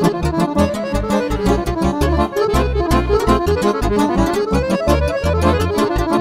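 Accordion playing Romanian lăutărească music: fast runs of notes over a pulsing bass beneath.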